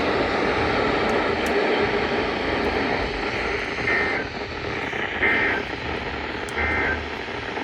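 Steady hiss of NOAA Weather Radio reception, with three short buzzing data bursts about a second and a quarter apart starting about four seconds in: the EAS end-of-message tones that close the broadcast warning.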